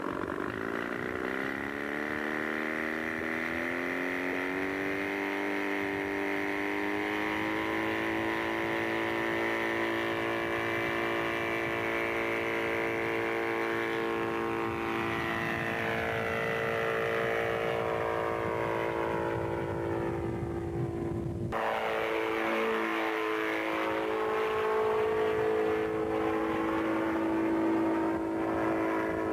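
Small engine of a single-seat homemade gyrocopter running up to takeoff power, its pitch climbing over the first several seconds and then holding steady at high power. About two-thirds through, the tone changes abruptly.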